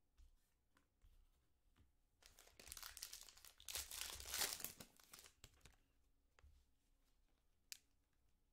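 Foil trading-card pack being torn open, a crinkling, tearing rustle that starts about two seconds in and lasts about three seconds. A single sharp click comes near the end.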